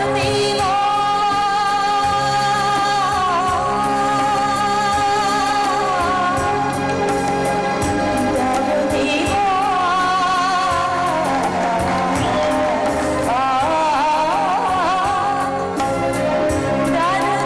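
Female singer performing an Afghan song live, holding long wavering notes with quick ornaments, over harmonium and electronic keyboard accompaniment.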